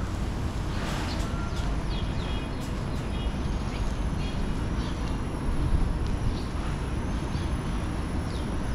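Outdoor street ambience heard while walking: a steady low rumble with faint high chirps a couple of seconds in and again later.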